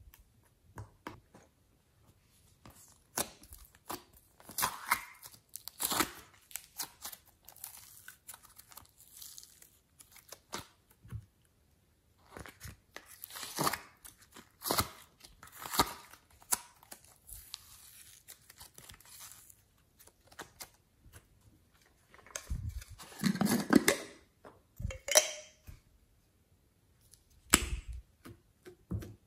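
Hands squeezing and working sticky slime and soft clay: irregular sticky crackles, pops and squelches, with a denser, louder run of squelching about two-thirds of the way through.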